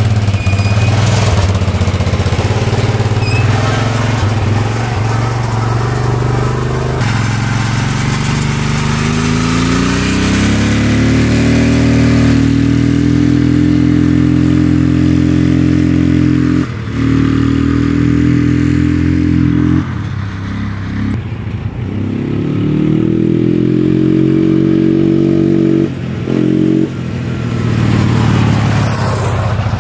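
2005 Can-Am Outlander 400 Max ATV's single-cylinder four-stroke engine running as it is ridden. It revs up with a rising pitch and eases off briefly several times. The owner suspects low compression from stuck piston rings.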